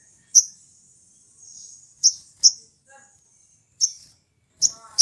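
Olive-backed sunbird giving short, sharp, high chirps, about six in irregular succession, over a faint steady high hiss.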